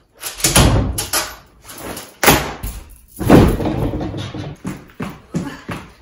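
A bedroom door being opened and slammed, among several loud bangs and thumps, the biggest about half a second, two and three seconds in.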